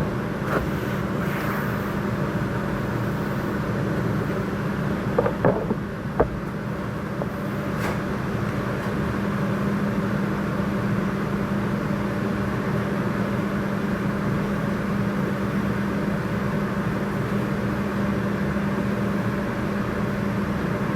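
A steady machine hum and hiss with a constant low tone. A few sharp knocks come about five to six seconds in, and one more about two seconds later.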